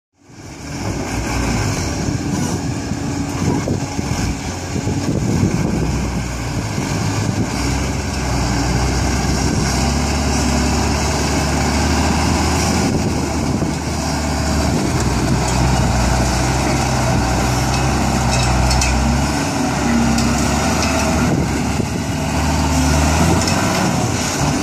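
Heavy diesel engines of a Caterpillar 320C excavator and a Mitsubishi ten-wheel dump truck running steadily, their pitch rising and falling now and then. The sound fades in at the start.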